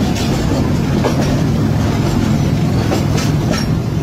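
Passenger train coaches running at speed: a steady low rumble with the wheels clacking over rail joints a few times.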